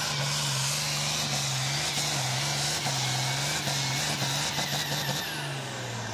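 Farm tractor's diesel engine at full throttle, labouring as it drags a weight-transfer pulling sled, its note wavering under the load. About five seconds in the engine eases off and the note drops away as the pull ends, with a high whine falling away.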